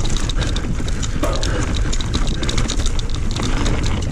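Mountain bike clattering down a rough, rocky dirt trail at speed: rapid clicks and knocks from the bike and tyres over a steady low rumble.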